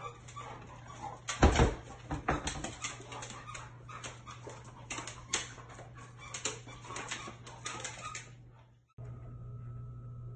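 Two dogs play-fighting on a tile floor: quick clicks and scuffles of claws and paws on the tiles, with a loud thump about a second and a half in. It cuts off abruptly about nine seconds in.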